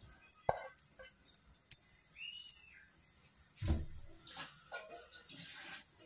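Sparse kitchen handling noises around a steel pan: scattered light clicks and taps, and a duller thump a little past halfway. A short chirp that rises and falls in pitch comes about two seconds in.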